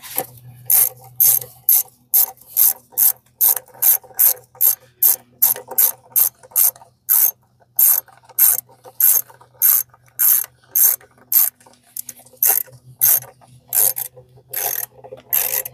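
Socket ratchet clicking in short back-swing strokes, about two a second with brief pauses, as a 10 mm engine-cover bolt is run down and tightened.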